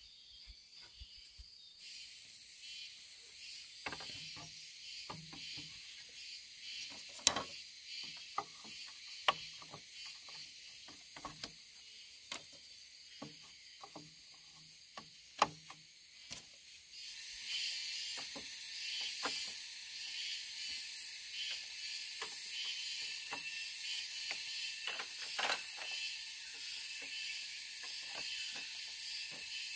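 Bamboo poles knocking and clicking against each other as they are fitted into a bamboo frame, in irregular sharp taps, a few much louder than the rest. Behind them forest insects drone steadily in a high, pulsing hiss that grows louder about halfway through.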